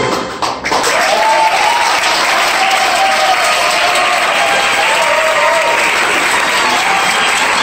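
Audience applauding at the end of a song, with a few voices calling out over the clapping. The band's last notes stop within the first second.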